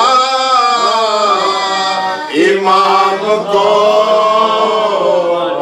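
Male voice chanting a slow, melodic lament without instruments, in the style of a noha or soz recited at a Shia majlis, holding long notes that bend up and down.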